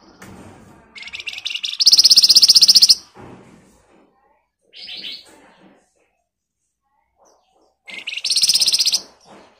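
Caged flamboyan songbird giving two fast, harsh rattling trills, each a second or two long, with a short high call between them.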